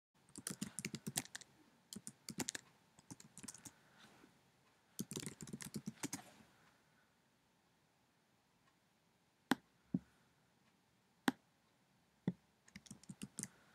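Typing on a computer keyboard in quick runs of keystrokes, then three single sharp clicks a second or two apart, then another short run of typing near the end.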